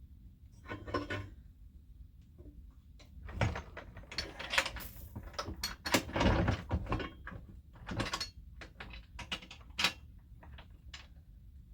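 Metal hand tools clicking, knocking and scraping in irregular bursts as a thread-repair tap is set up and worked in a cylinder's spark plug hole.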